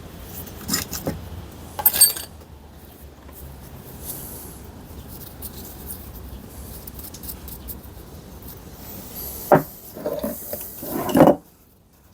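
Metal parts and tools being handled on a workbench: a few sharp clinks and knocks about a second and two seconds in, then a cluster of knocks and scraping near the end that stops abruptly.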